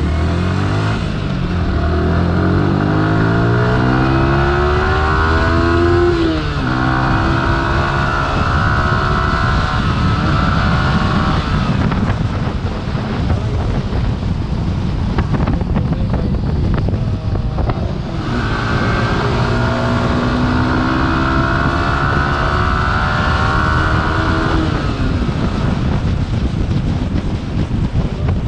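Yamaha R15 V3's 155 cc liquid-cooled four-stroke single-cylinder engine revving hard in the low gears, its note climbing in pitch, dropping at an upshift about six seconds in, then climbing again. The engine note fades for a few seconds midway, then pulls strongly again and cuts off sharply as the throttle closes about three seconds before the end.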